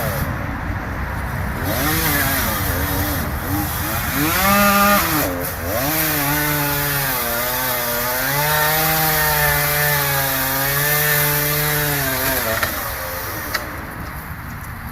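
Two-stroke chainsaw running and cutting wood, its engine pitch climbing and falling again and again as it revs and bogs under load; it drops away near the end.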